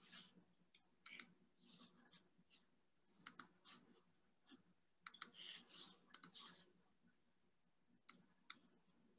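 Faint clicks of someone working a computer, mostly in quick pairs, scattered every second or two over a faint low hum.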